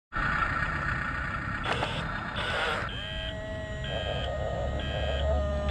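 Double E 579 RC bulldozer running: a steady electric whine with two short rushes of noise in the first half, then three short high beeps about a second apart.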